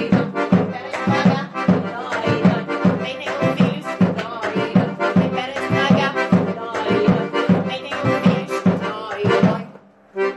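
Accordion playing a lively tune over a steady hand-drum beat, stopping abruptly about a second before the end.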